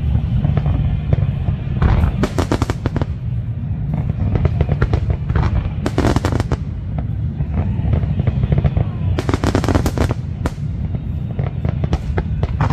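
Aerial fireworks going off: clusters of rapid crackling pops about two, six and nine to ten seconds in, over a steady low rumble.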